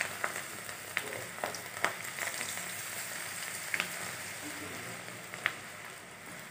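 Cabbage pakoda batter deep-frying in hot oil: a steady sizzle with sharp pops and crackles every second or so as pinches of batter are dropped in.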